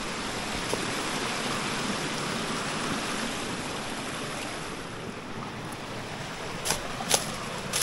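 Steady rushing hiss of a small forest stream's running water, with a few sharp clicks near the end.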